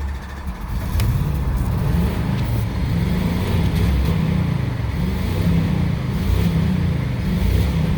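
2006 Jeep Commander's 4.7 L V8 starting again about a second in, then running with its engine speed wavering up and down. The engine is throwing a multiple-cylinder misfire code (P0300).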